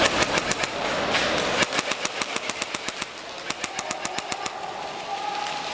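Airsoft electric guns firing, a rapid stream of sharp snaps in irregular runs of several to about ten a second.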